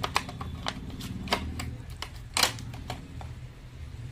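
Irregular clicks and crackles of hard plastic blister packaging being handled, with one sharper, louder click about two and a half seconds in.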